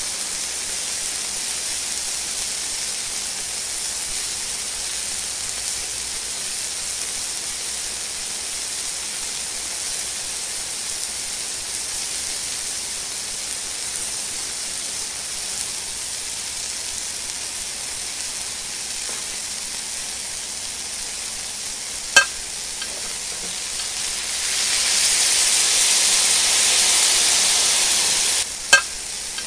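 Beef steak searing in a cast-iron pan over hot embers: a steady hissing sizzle of fat and juices. Two sharp pops come late on, and the sizzle grows louder for a few seconds near the end.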